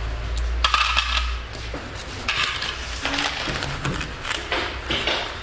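Coins clinking and small items being handled at a shop counter during payment: irregular clicks and short rustling bursts, with a low hum that fades out about a second and a half in.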